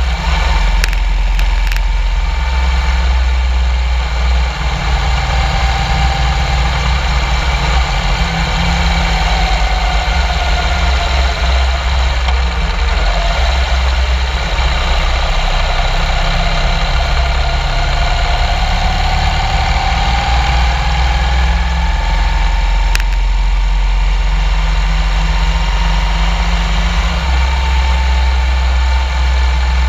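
Motorcycle engine running steadily at cruising speed, its pitch drifting slowly down, then back up, under a heavy low rumble.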